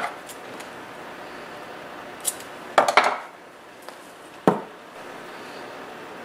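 Tools and small items being picked up and set down on a workbench: a few scattered knocks and clicks, with a cluster of clatter about three seconds in and a last knock a second and a half later.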